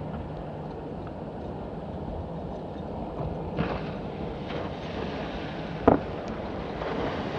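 Steady outdoor wind and water noise with a faint low hum, a brief louder rush about three and a half seconds in, and one sharp knock just before six seconds.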